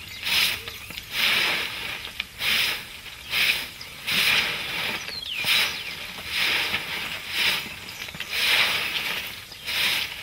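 Broom sweeping the ground in repeated swishing strokes, about one a second.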